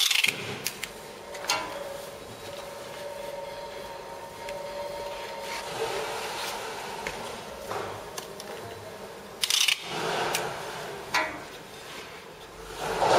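Paper and cardboard cores being handled by hand on a paper slitter-rewinder's rewind shaft: rubbing and scraping of paper, with scattered sharp clicks and knocks. There are louder bursts of handling noise a little after halfway and near the end, and a faint steady hum for a few seconds early on.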